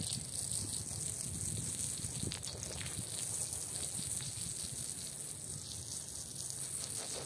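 Soapy water gushing steadily over a rug and across the wet tile floor around it, with a hiss of running water and a few small splashes.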